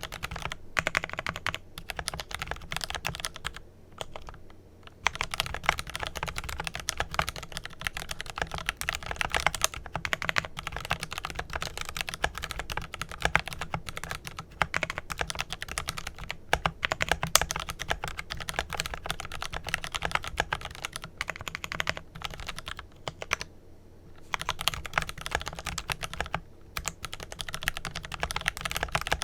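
Fast, continuous typing on a Glorious GMMK Pro mechanical keyboard with lubed Kailh Pro Purple tactile switches and PBT keycaps: a dense run of key clacks, broken by two brief pauses, about four seconds in and near twenty-four seconds.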